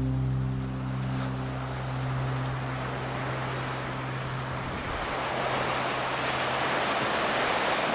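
Small North Sea waves breaking and washing on the beach, a steady rush of surf that swells slightly near the end. The tail of background music fades out in the first few seconds.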